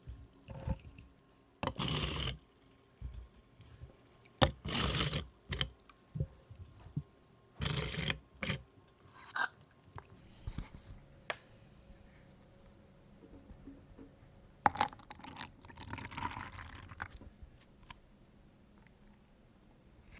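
Drinks being handled and mixed: several short scraping and rustling noises with clicks, and liquid pouring.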